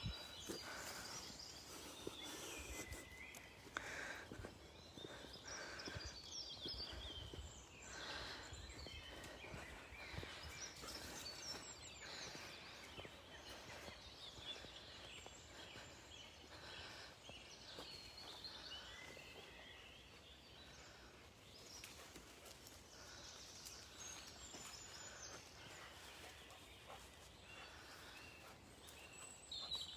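Songbirds singing and chirping, many short calls one after another, over faint outdoor background noise.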